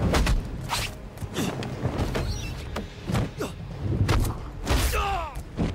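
Kung fu fight sound effects: a quick string of about a dozen punch and block impacts, with a short grunt or shout about five seconds in.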